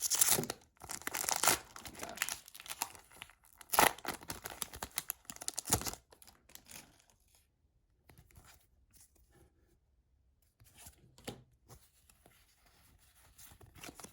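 A Pokémon booster pack's foil wrapper being torn open and crinkled, with the sharpest rip about four seconds in. After about six seconds only faint, scattered rustling remains.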